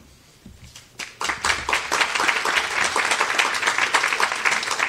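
Audience applauding. The clapping starts about a second in and swells into steady applause from many hands.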